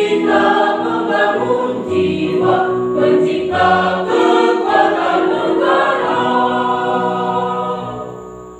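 Mixed choir of men's and women's voices singing in harmony, ending on a held chord that fades away near the end.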